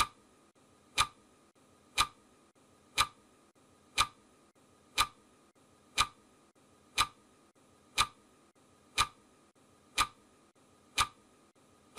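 Ticking clock sound effect of a countdown timer: one sharp tick every second, evenly spaced, twelve in all.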